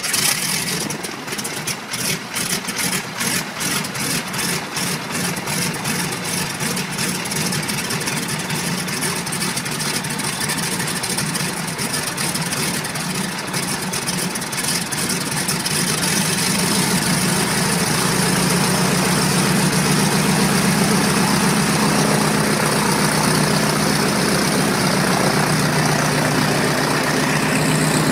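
Boeing PT-17 Stearman's seven-cylinder Continental radial engine firing up and running on the ground. It pulses unevenly at first, then settles into a steadier, somewhat louder run from about halfway through.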